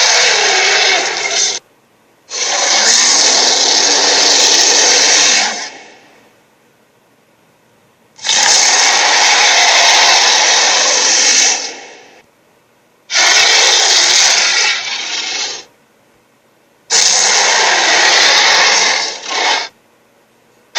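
A series of harsh, noisy sound effects, five bursts of about two to four seconds each with short silences between, the first already under way.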